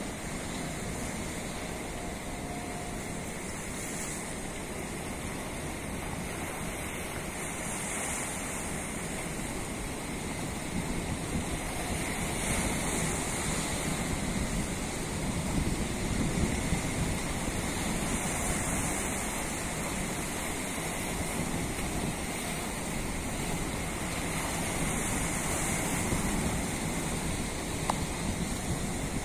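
Sea noise heard from aboard a moving boat: water rushing and waves splashing past the hull, with wind on the microphone. A steady hiss that swells a little about halfway through.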